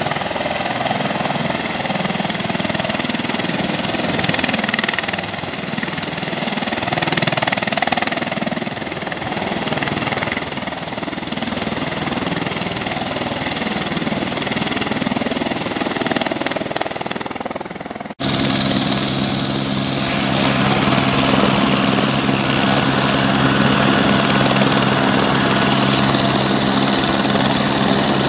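Helicopters running on the ground with their rotors turning, a loud steady engine and rotor noise. About two-thirds of the way through it cuts to a helicopter flying low overhead, a steady low drone.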